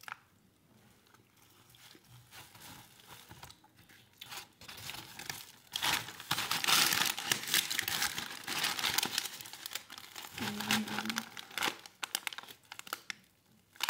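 Paper sandwich wrapper crinkling and rustling as it is handled around a crusty panino, soft at first and loudest through the middle stretch.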